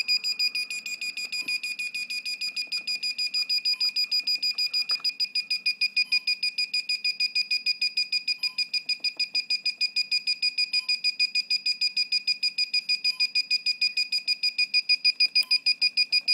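Homemade FPV RSSI switch's sound-monitor beeper giving a rapid, even train of short high beeps, several a second, that cuts off suddenly at the end. The beep rate reports the received video signal strength: the better the signal, the more it beeps.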